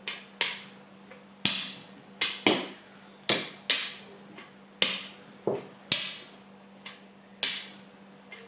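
Rolling pin knocking on a board as a piece of bun dough is flattened out: about a dozen sharp knocks at an uneven pace, one or two a second, over a steady low hum.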